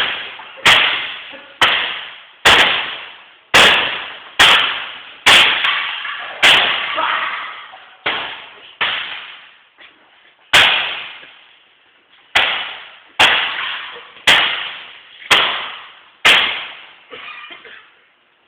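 A photocopier being hit hard over and over, about fifteen sharp crashing blows roughly one a second, each dying away quickly, with a short pause about halfway.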